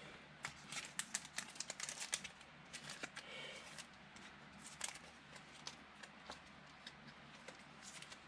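Trading cards being handled and sorted on a table, a run of faint, irregular clicks, taps and slides, busiest in the first couple of seconds and sparser after.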